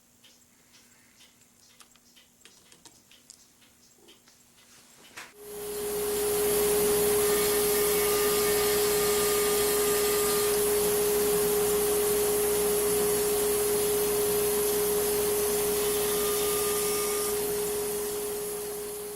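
A few faint clicks of handling, then about five seconds in a woodworking power tool starts and runs steadily with a strong hum and hiss, easing off slightly near the end.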